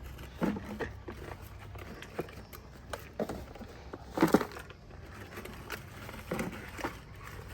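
Toy construction vehicles being handled: irregular knocks, clicks and short crunching scrapes, loudest about four seconds in, over a low steady hum.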